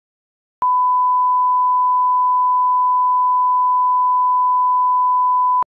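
1 kHz reference tone accompanying SMPTE colour bars: a single steady beep lasting about five seconds. It starts about half a second in and cuts off sharply near the end. It is the line-up tone used to set audio levels at the head of a broadcast spot.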